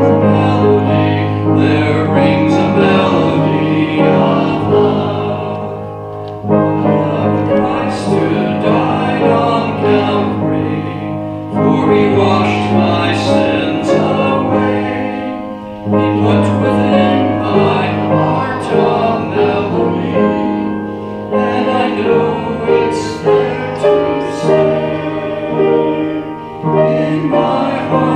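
Congregation singing a hymn together with keyboard accompaniment. The hymn is sung in long held lines, with a brief dip between phrases about every five seconds.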